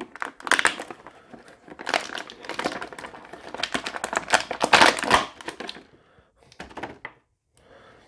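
Clear plastic packaging crinkling and crackling as an action figure is pulled out of its plastic tray and wrap. It runs for most of the first six seconds, then two short crackles come near seven seconds.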